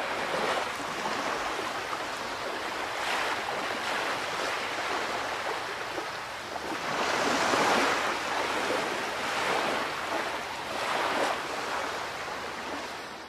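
Sea waves washing in, in a rushing hiss that swells and ebbs every two or three seconds. The biggest surge comes about halfway through.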